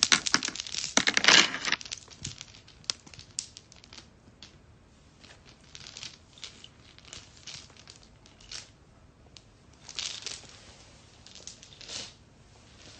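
Close rustling and crinkling, dense and loudest in the first two seconds, then scattered soft rustles and small clicks.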